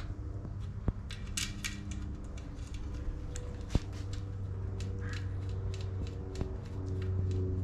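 Small clicks and light taps of a tubeless valve stem being pushed through a bicycle rim and its lock nut threaded on, with two sharper knocks, over a steady low hum.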